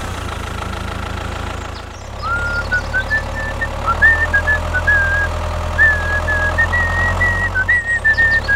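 Tractor engine running steadily with a low, knocking hum, picking up again after a brief dip about two seconds in, with a higher wavering whine above it from then on.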